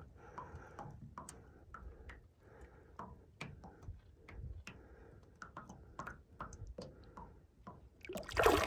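Small, irregular water splashes and drips around a hand holding a rainbow trout in shallow lake water as it is released, with a louder splash near the end as the trout pulls free.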